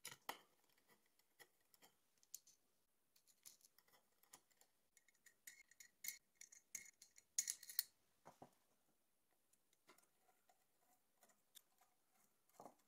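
Near silence broken by faint clicks and light ticks of small screw hardware being handled and tightened with a hex key into the aluminium extrusion, with a short cluster of clicks a little past halfway.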